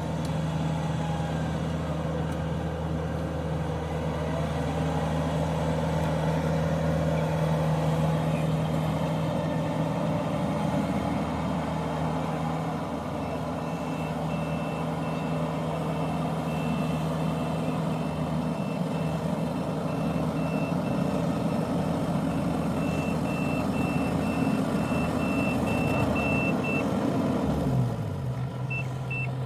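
Heavy diesel farm machinery running steadily. From about halfway through, a high electronic warning beep sounds over it in quick repeated pips, then stops. Near the end the engine slows down and quietens.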